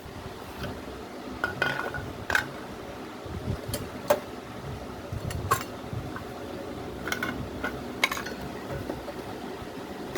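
Metal hand tools and sockets clinking and tapping, with sharp irregular clinks spread over several seconds.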